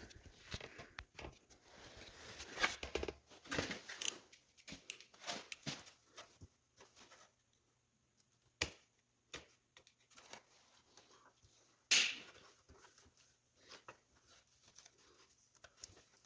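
Hands working on a motorcycle's wiring harness: tape being torn and peeled from the wiring, with scattered small clicks and rustles of plastic, and one louder scrape about twelve seconds in.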